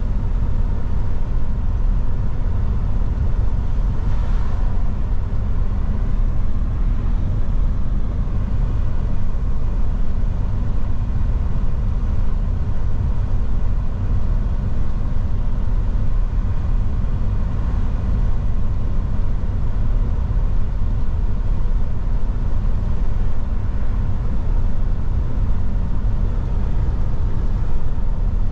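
Steady low rumble of a Mercedes-Benz Actros truck under way: engine and road noise heard from inside the cab.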